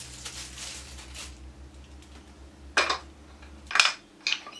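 Wooden blocks of a perpetual desk calendar being handled: soft rustling at first, then three sharp clacks of the blocks knocking together and against their stand in the last two seconds.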